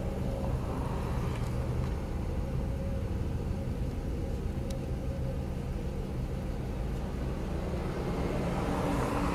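Low, steady rumble of a car idling, heard from inside the cabin, with passing traffic swelling louder near the end.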